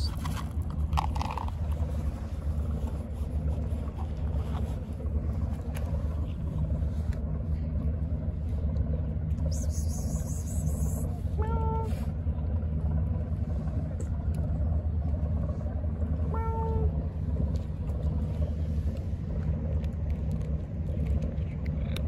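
A steady low engine rumble, with two short high tones, one a little past halfway and another about five seconds later.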